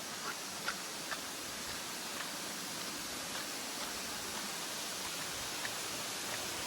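Steady rushing water, an even hiss with no rhythm, with a few faint short ticks in the first couple of seconds.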